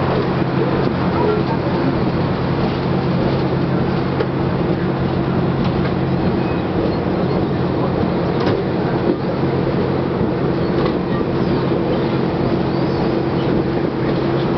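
Alaska Railroad passenger train running: a steady rumble and low drone, with a few faint clicks.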